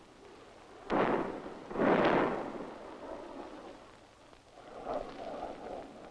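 Two rocket explosions about a second apart, each a sudden blast that fades away, followed by a quieter, rough rumbling noise.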